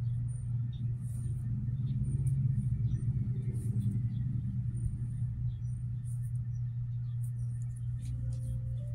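A steady low mechanical hum, with faint scattered light clicks and rustles over it.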